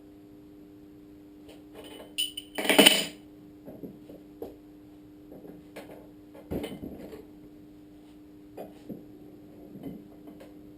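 Metal parts and tools being handled on a workbench: scattered clinks and knocks, with one loud metallic clatter about three seconds in, over a steady low hum.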